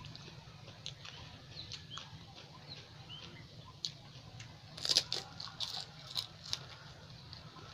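Close-up eating sounds of panipuri: scattered wet mouth clicks and chewing, with a run of loud crunches about five seconds in as a crisp puri shell is bitten and broken.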